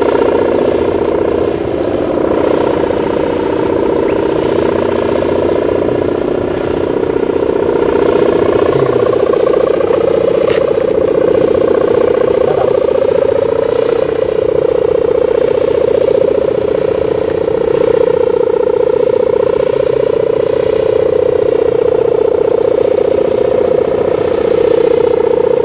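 Sendaren kite hummer of the gerr type, its tuned plastic mika ribbon vibrating in the wind on a kite flying high: a loud, steady buzzing drone whose pitch wavers a little.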